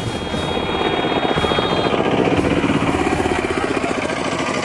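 A small engine running with a fast, even chugging, getting a little louder about halfway through; a thin high tone sounds over it for the first two seconds.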